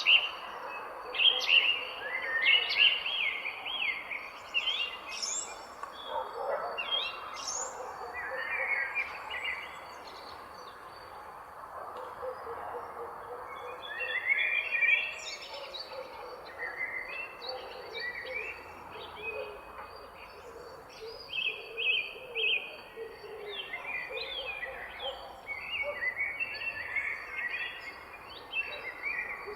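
Several songbirds chirping and singing in overlapping short calls and trills over a steady background hiss, with a faint, thin, steady high tone throughout.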